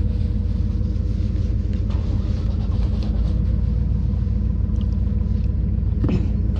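A large engine idling steadily, a low even rumble.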